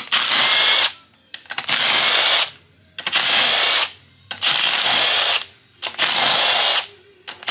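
Handheld power tool run in five short bursts of about a second each, with a steady high whine in each burst, likely spinning out used bolts.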